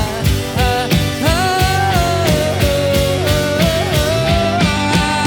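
Live band playing a song: drums keep a steady beat under a sustained lead melody that bends up and down in pitch.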